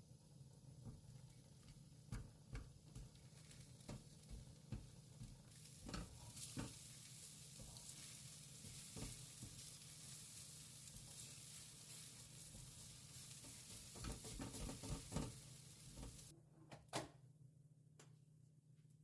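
Eggs for cheese scrambled eggs sizzling in a frying pan while a spatula stirs and taps against the pan. The sizzle starts about five seconds in and cuts off suddenly near the end, with a steady low hum underneath.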